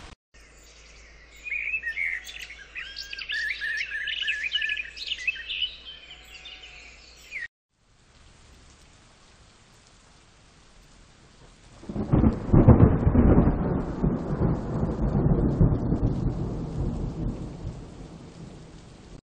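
Ambient-noise recordings played in turn: chirping birdsong for the first several seconds, then a thunderstorm with a faint hiss of rain. A long roll of thunder starts about twelve seconds in and slowly fades.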